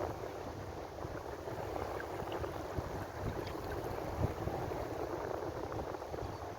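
Ocean waves washing steadily on the shore, a continuous rushing noise with a low rumble beneath it.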